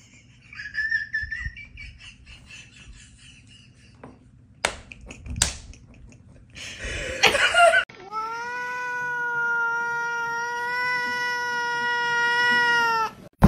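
Domestic cat yowling: after a short faint call and a few clicks and a rustle, one long drawn-out meow holds a steady pitch for about five seconds and cuts off suddenly.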